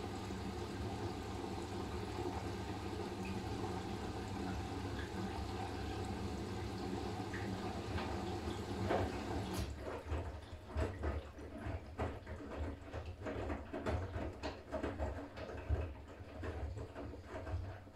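Siemens iQ500 front-loading washing machine mid-cycle: a steady machine hum with running water, which stops about halfway through and is followed by irregular splashing and knocking of water and laundry in the turning drum.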